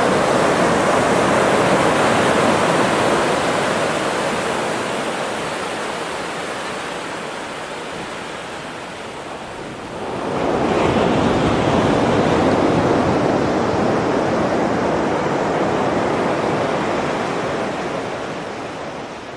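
Ocean surf breaking on the shore: one wave's rush fades away, then another breaks about halfway through and slowly washes out.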